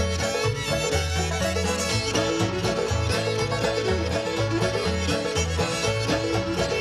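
Old-time string band playing an instrumental passage of a tune: fiddle and banjo over guitar, with a bass line moving note by note underneath.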